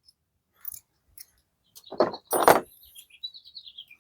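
Two short scraping noises about two seconds in, then a bird chirping in quick repeated notes in the background.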